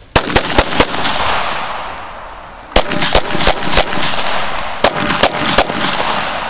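Pistol fired in three quick strings of about four shots each: one right at the start, one about three seconds in and one about five seconds in. Each shot is a sharp crack with a long echo that fades between strings.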